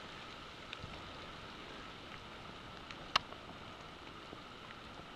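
Sleet falling steadily on the forest floor, a soft even hiss with scattered faint ticks of pellets landing, and one sharp click about three seconds in.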